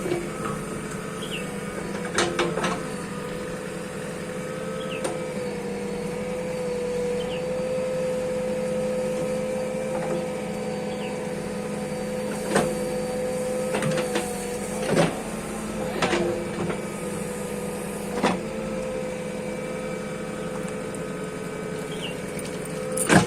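Bulldozer's diesel engine running steadily with a held whine over its hum, and sharp metallic knocks every few seconds.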